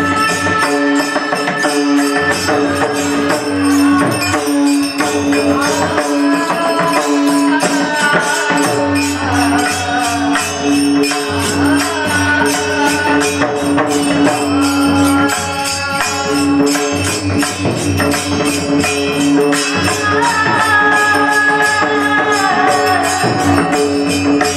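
Devotional kirtan singing over a steady held drone note, with jingling metal percussion keeping a fast, even beat.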